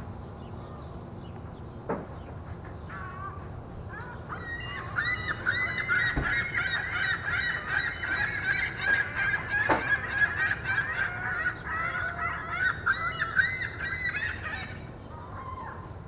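A flock of birds calling in a dense, rapid chatter of short repeated notes over a steady low city hum. The calls start about four seconds in and fade out near the end.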